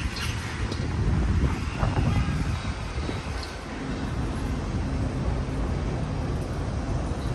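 Wind rumbling and buffeting on the microphone in a sandstorm, with a faint steady hum through the middle.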